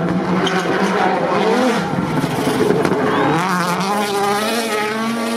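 Car engine running at fairly steady revs; its pitch dips about two seconds in, then climbs gradually toward the end.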